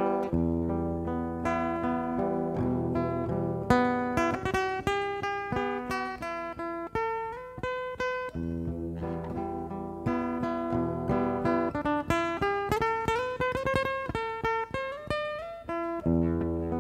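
Solo acoustic guitar, fingerpicked: a melody of single plucked notes over low bass notes, with a climbing run of quicker notes in the second half.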